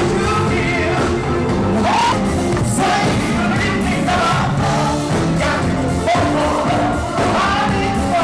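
Live pop-rock concert: a female vocal group singing over a full band with a steady beat, as heard from the audience.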